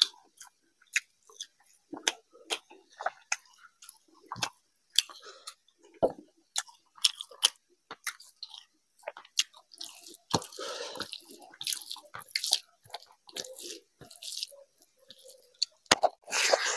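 Wet chewing and lip-smacking of rice and curry eaten by hand, with many short mouth clicks. About ten seconds in and again near the end there is squelchy noise from fingers working the rice and curry and a handful going into the mouth.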